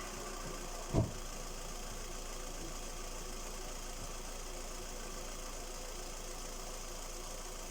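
Skoda Rapid's 1.6 CFNA four-cylinder petrol engine idling steadily, with one loud thump about a second in. The owner is trying to find the source of a knock in this engine.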